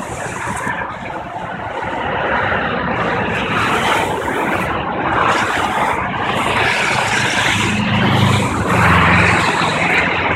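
Highway traffic passing below, cars and trucks rushing by in swelling and fading waves of tyre and engine noise, with a low drone for about two seconds near the end.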